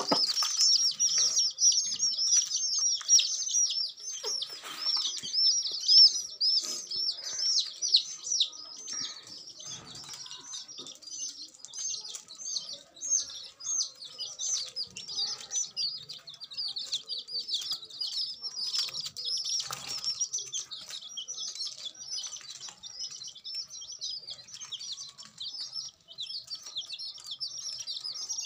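A flock of young chicks peeping nonstop: many high, short, overlapping peeps, each sliding downward in pitch.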